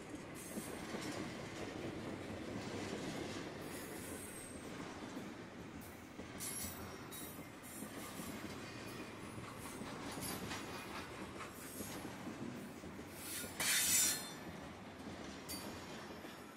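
BNSF intermodal freight cars rolling past close by: a steady rumble of wheels on rail with clicking, broken by high wheel squeals. The strongest squeal comes just before the end, then the sound falls away as the end of the train goes by.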